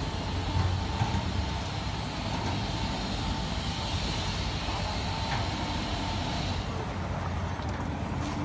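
Automatic gantry car wash machine running: a steady mechanical hum with a hiss over it, the hiss dropping away about seven seconds in.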